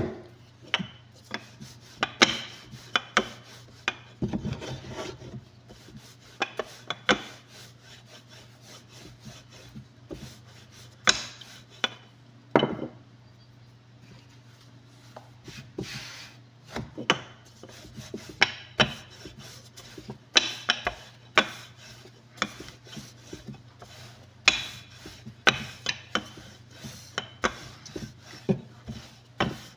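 Hands pressing, patting and stretching pizza dough on a floured wooden board: irregular soft thumps, taps and rubbing on the wood. Near the end a rolling pin rolls over the dough on the board.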